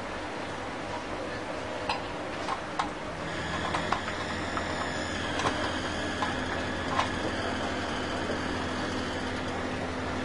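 A steady electric motor hum that starts up about three seconds in, with a few light clicks and taps.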